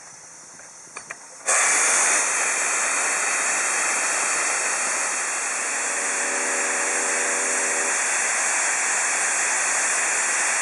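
Blowdown of a 1909 Stanley Steamer Model R boiler. After two short clicks, a loud, steady hiss starts suddenly about a second and a half in. It is water at roughly 500 degrees being emptied from the bottom of the boiler and flashing to steam as it meets the cold air.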